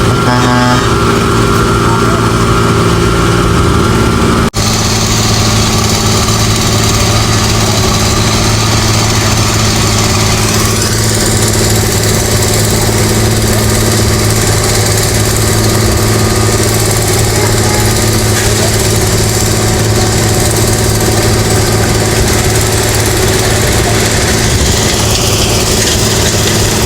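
Engine of heavy road-construction machinery running steadily, with a sudden momentary cut about four and a half seconds in.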